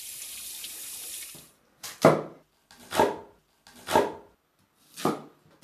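Tap water running briefly, then a knife chopping through a peeled bamboo shoot onto a cutting board: four even chops about a second apart.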